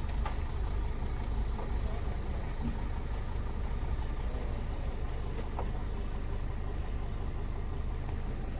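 2016 Honda Civic engine idling steadily, now running after a no-start fault was cleared by erasing its low-voltage ECU fault codes.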